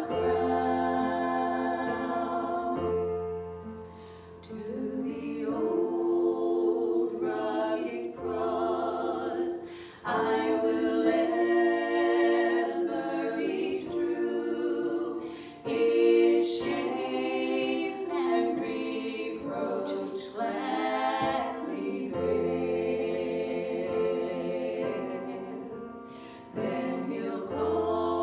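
Voices singing a slow worship song in long held notes over a steady low accompaniment.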